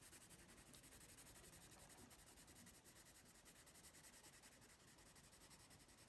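Faint scratching of a Prismacolor coloured pencil shading on paper in quick repeated strokes.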